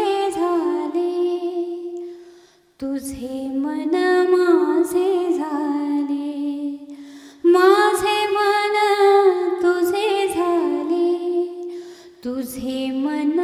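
A woman singing a slow song unaccompanied, holding long notes that bend and waver, in phrases of about four to five seconds broken by short breaths.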